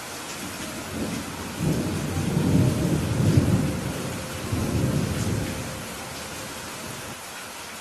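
Steady rain hissing, with a rolling rumble of thunder that swells about a second in, peaks near the middle and dies away well before the end.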